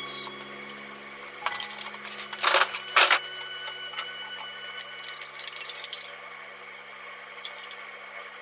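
A few sharp clinks and knocks of kitchen dishes and utensils, the loudest two about two and a half and three seconds in, over a low steady hum.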